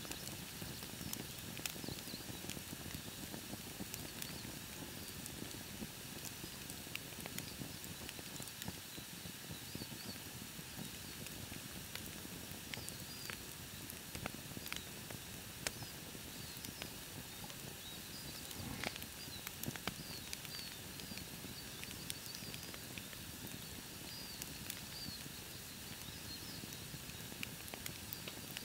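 Campfire burning with a soft steady hiss and scattered crackles and pops, a few sharper cracks in the middle. Faint high chirps sound in the background.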